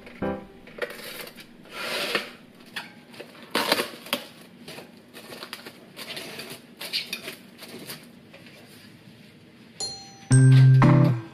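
Saran Wrap cling film crinkling and rustling as it is stretched and pressed down over a pot, with small knocks of handling. Loud background music comes in near the end.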